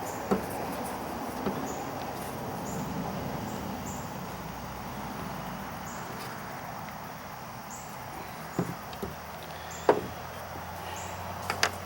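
Scattered light clicks and knocks, several seconds apart, from a string trimmer head and screwdriver being handled as the head is tightened onto the trimmer shaft. They sit over a steady background noise, and the sharpest knock comes near the end.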